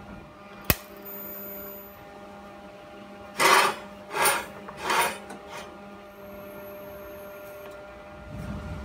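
TIG welder tacking a flange onto a steel cylinder: three short bursts of arc noise a little over half a second apart, over the steady hum of the welding machine. A single sharp click comes about a second in.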